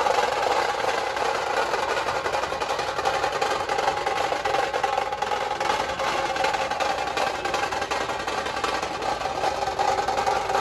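Dhol-tasha troupe drumming: many large barrel dhols struck with sticks and snare-like tasha drums playing fast, unbroken rolls.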